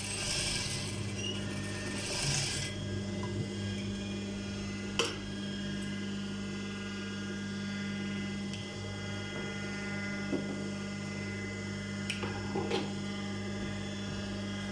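Industrial sewing machine's motor humming steadily, with short bursts of stitching in the first three seconds as a pleat is sewn. A few sharp clicks follow later on, with fabric rustling as the work is handled and the thread trimmed.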